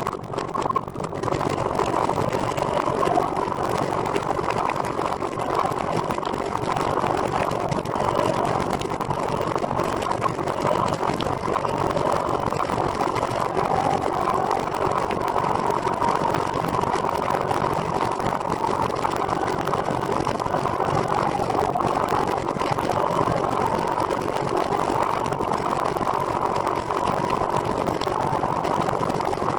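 Steady riding noise from a recumbent trike rolling along a road: tyre hum and wind, unbroken throughout.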